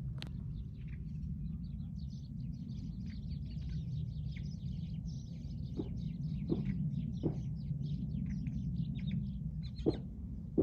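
A flock of small birds chirping and chattering together in rapid overlapping notes, over a steady low rumble, with a few sharp knocks in the second half.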